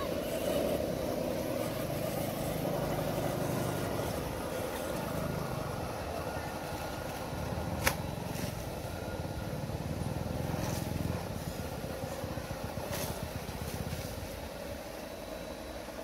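Scale RC crawler trucks' electric motors and geared drivetrains whirring as they crawl over rocks and through shallow stream water, with one sharp knock about eight seconds in.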